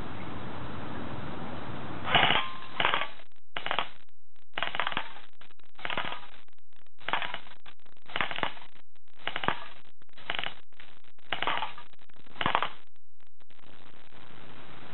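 Airsoft gun firing single shots, about eleven at roughly one a second, with the BBs clinking and smacking into an aluminium soda can and a skateboard target.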